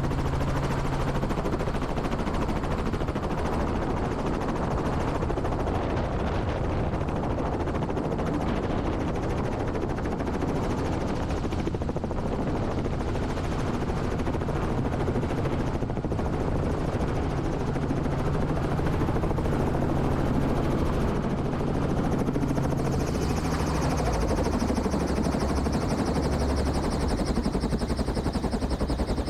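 Robinson R44 Raven II helicopter in flight: the rapid chop of the main rotor blades over the steady hum of the engine. About two-thirds of the way through the sound shifts, and a higher whine comes in.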